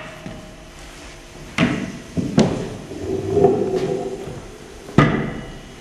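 Three sharp wooden knocks and thuds as objects are set down and moved on a wooden table, with a brief low ringing tone between the second and third.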